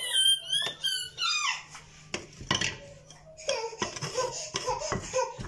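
A young child's high-pitched squealing giggles for about the first second and a half. Then several knocks and scrapes of a wooden spoon against a clay tagine as the chicken pieces are turned.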